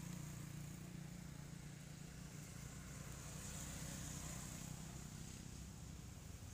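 Faint, steady hum of road traffic, with a low engine drone underneath.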